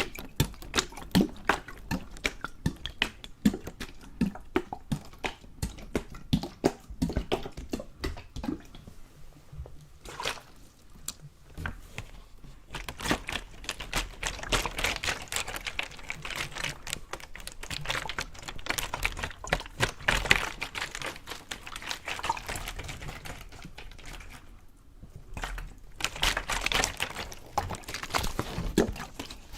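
Close-miked ASMR water sounds: a dense run of small clicks, crackles and splashes of liquid, dipping briefly a little before the end.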